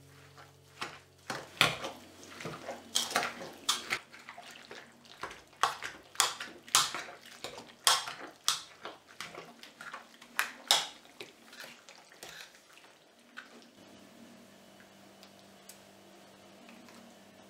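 Wire masher crushing raspberries and sugar in an aluminium bowl: repeated wet squelches, with the masher knocking against the metal bowl, for about the first eleven seconds. Then it goes quieter, with a faint steady hum near the end.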